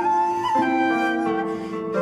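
Instrumental background music: a slow melody of held notes over softer sustained accompaniment.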